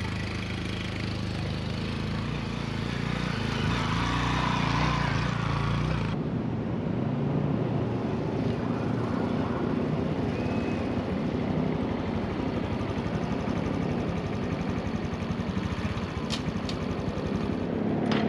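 Honda CT125 Hunter Cub's single-cylinder engine running: heard at a distance at first, then close by from about six seconds in with its firing pulses coming fast and even as the bike rides up and pulls to a stop. A few sharp clicks sound near the end.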